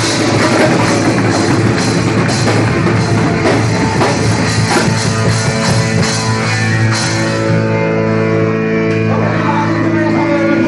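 Punk rock band playing live: electric guitars, bass and drums at full volume. About seven seconds in, the cymbals and drums drop out, leaving held guitar chords ringing.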